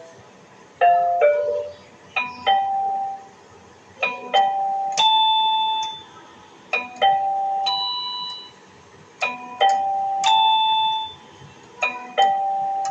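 Piano notes played in a short three-note phrase, repeated over and over, with the last note of each phrase held.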